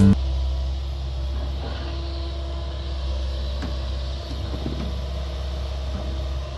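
Komatsu PC200 excavator's diesel engine running steadily with a low rumble.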